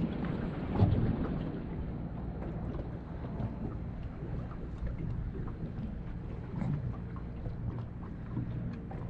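Wind rumbling low on an action camera's microphone, with small waves lapping against a boat's hull and a knock about a second in.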